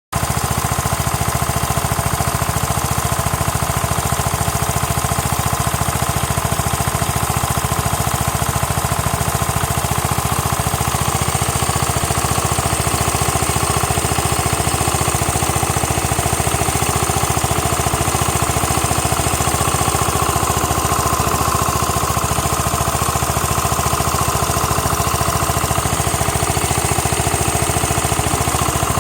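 Yamaha Cygnus-X scooter's 125 cc single-cylinder four-stroke engine running at a steady speed with a fast, even knocking clatter. This is a strange noise that the owner suspects may come from the piston pin.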